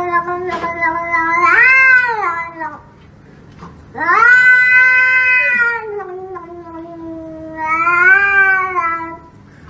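A cat yowling in long, drawn-out calls that rise and fall in pitch. A call of about three seconds is followed by a longer one of about five seconds that swells twice.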